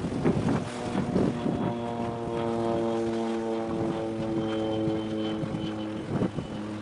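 A ship's horn sounds one long, steady blast of about four seconds, starting about a second and a half in. Wind buffets the microphone before and after it.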